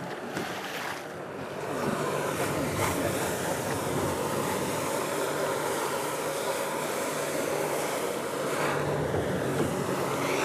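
Steady rush of choppy water and wind, with a low engine drone from the Sea-Doo personal watercraft that pumps water up the hose to the Jetovator. The drone grows stronger from about two seconds in.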